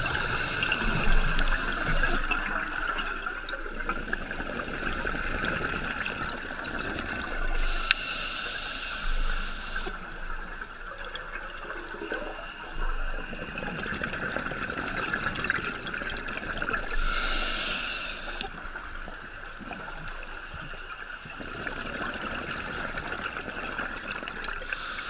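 Scuba regulator breathing heard underwater through a camera housing: a sharp hiss about every eight seconds, with bubbling and gurgling between, over a steady high whine.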